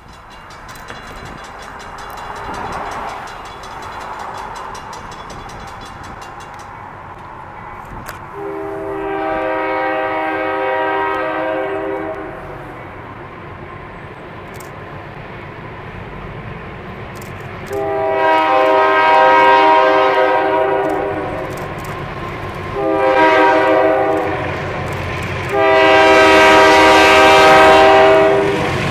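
Providence and Worcester freight locomotive's air horn sounding the grade-crossing signal: two long blasts, a short one, then a long one, the warning for an approaching road crossing. Under it the diesel locomotives rumble, growing louder as the train draws near.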